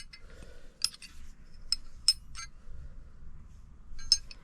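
Metal wrenches clinking against each other and a hard surface as they are handled and set down: about six sharp, short clinks with a brief ring, spaced unevenly.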